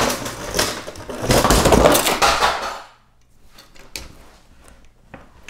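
Cardboard box of a building-brick set being pulled open and handled on a table. There is a scraping rustle with sharp knocks for nearly three seconds, then it goes quieter with a few light knocks.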